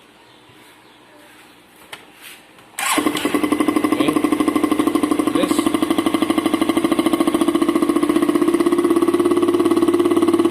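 Motorcycle engine turned on its freshly cleaned electric starter motor: a loud, fast and even pulsing engine sound cuts in suddenly about three seconds in and keeps a steady pitch.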